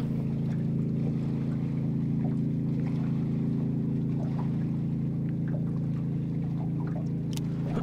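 Boat motor running steadily, an even, unchanging hum.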